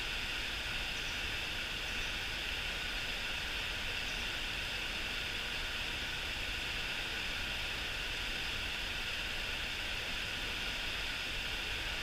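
Steady rush of a mountain stream, an even hiss of running water that does not change.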